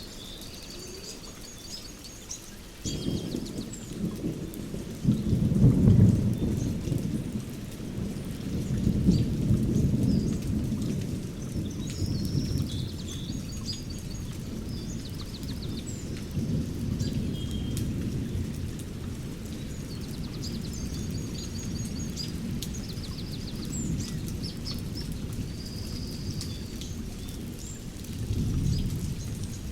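Thunderstorm: thunder starts rumbling about three seconds in, is loudest a few seconds later and keeps rolling, with another swell near the end. Rain falls steadily throughout, and birds sing short, repeated high phrases over it.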